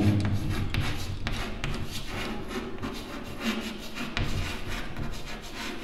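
Chalk scratching and tapping on a chalkboard as a word is written by hand, a run of many short strokes.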